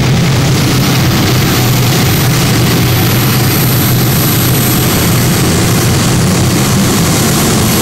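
Modified pulling tractor's gas-turbine engine (an Isotov helicopter turboshaft) running at full power as it drags the weight sled, a steady jet-like whine with a high thin whistle over it.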